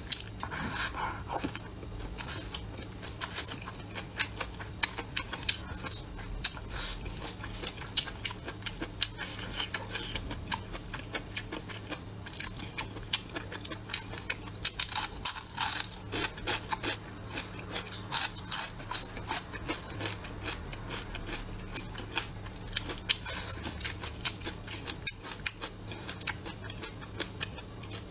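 Close-miked eating sounds: chewing and crunching with wet mouth noises, heard as many irregular sharp clicks, thickest about halfway through, over a low steady hum.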